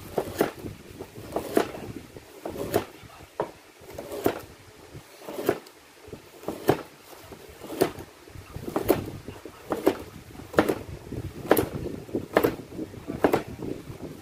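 Kitchen knife slicing a carrot into rounds on a cutting board: each cut ends in a sharp knock of the blade on the board, about one a second at an even pace.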